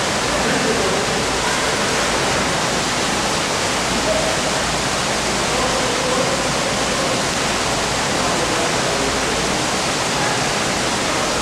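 Steady rush of running water, even and unbroken, with faint voices under it.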